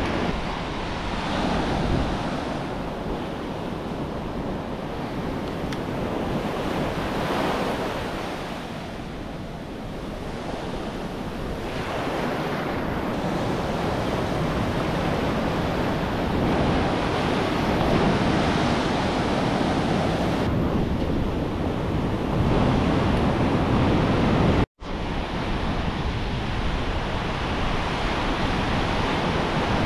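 Ocean surf breaking and washing in over the shallows in swells that rise and ease, with wind on the microphone. The sound cuts out completely for a split second about 25 seconds in.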